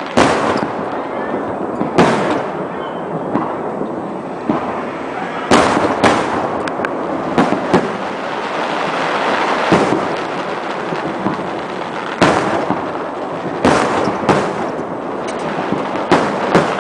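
Aerial fireworks shells bursting: about a dozen sharp bangs at irregular intervals, some in quick pairs, with continuous noise from the display between them.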